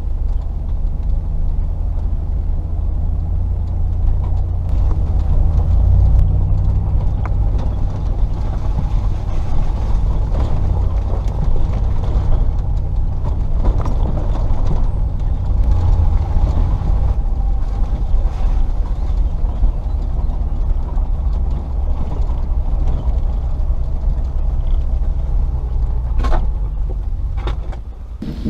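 Range Rover P38's 4.0 V8 running at low revs while the vehicle drives slowly along a rough track: a steady deep rumble, with a few knocks and creaks from the body and suspension near the end.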